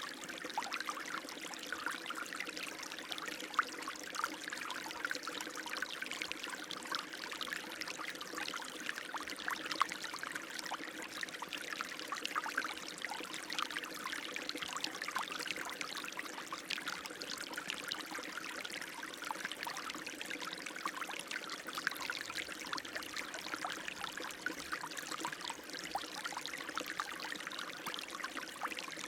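Running water, a steady, even flow of small splashes and trickling.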